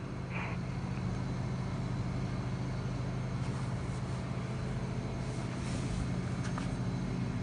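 Steady low mechanical hum with a few steady tones, like a machine or motor running continuously, and a few faint clicks in the second half.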